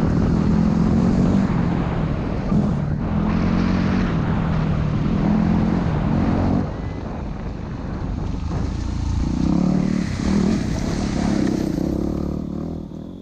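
Dual-sport motorcycle engine running under way with wind rush, its note swelling and dropping several times. It gets quieter about halfway through and fades out near the end.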